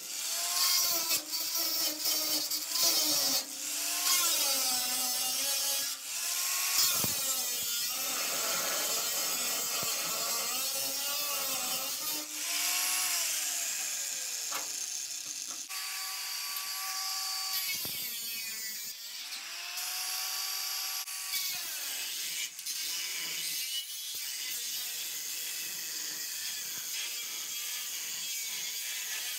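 Electric angle grinder cutting and grinding rusty body sheet steel, its motor whine dipping in pitch as the disc bites and rising again as it comes free. About halfway through it winds down and then starts up again.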